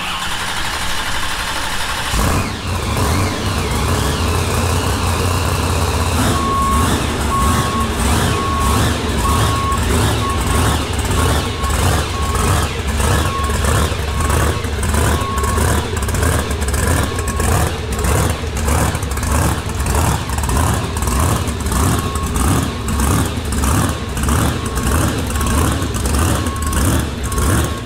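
Monster truck engine running loud with an even pulsing beat. A reversing beeper sounds about once a second from about six seconds in, pausing briefly in the middle.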